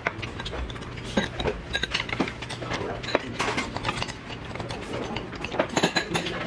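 Metal chopsticks and a spoon clinking and scraping against a stainless steel bowl in many quick, irregular knocks.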